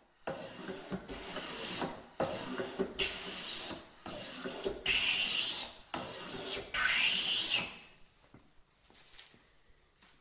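Metal hand plane cutting wood in a run of strokes, about one a second, each a swish of the blade taking a long continuous shaving. The strokes stop about eight seconds in.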